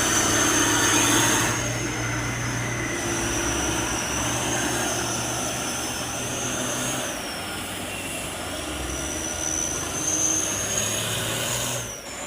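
Heavy diesel engine running steadily, with a thin high whine that wavers and dips in pitch.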